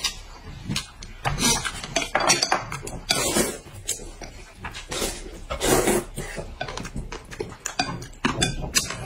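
Chopsticks clicking against a ceramic bowl while wide glass noodles are slurped and chewed, in several slurps of about half a second each.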